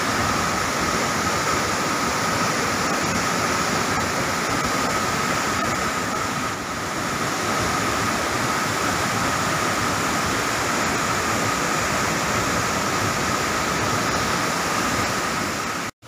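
Waterfall's steady rushing roar of water plunging onto rocks and running over boulders.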